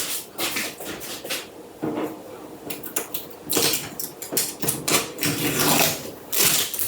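Plastic packaging rustling and crinkling as it is handled, in a quick run of uneven, crackly bursts.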